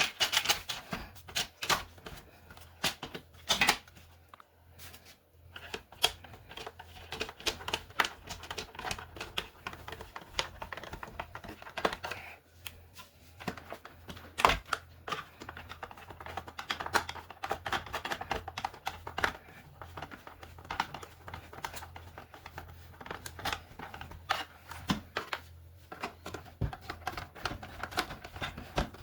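Irregular clicks, taps and knocks of plastic carpet-cleaner parts and hand tools being handled as the machine is put back together, with one sharper knock about midway.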